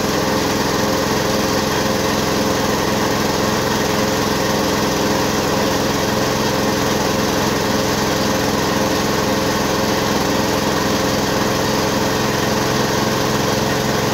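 Mini rice milling machine running steadily, hulling and milling paddy into white rice that pours from its spout. A constant, unchanging machine drone.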